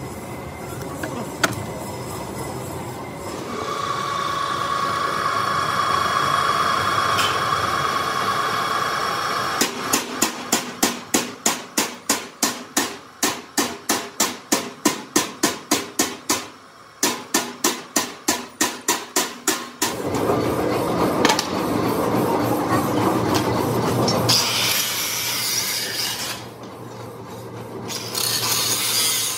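Power tools working steel: a drill bores through a steel plate with a steady whine, then a run of regular knocks, about two or three a second. After that an angle grinder cuts the steel, with a harsh hiss near the end.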